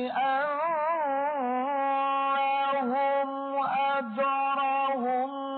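A man's voice reciting the Quran in the melodic tilawat style, drawing out long sung notes with wavering ornaments and only brief breaks.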